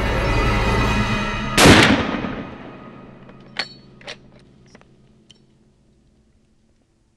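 A single loud hunting rifle shot about a second and a half in, cutting off the background music, its echo dying away over the next second; a few faint clicks follow.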